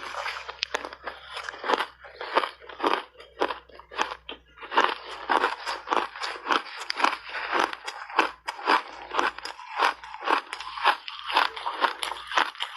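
Refrozen shaved ice being bitten and chewed: a dense run of sharp crunches, several a second.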